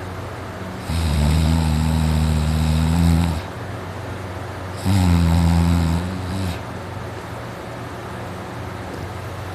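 A man snoring: two long, deep snores about four seconds apart, the first lasting about two and a half seconds and the second shorter, trailing off. The snoring is through a dry, sore throat.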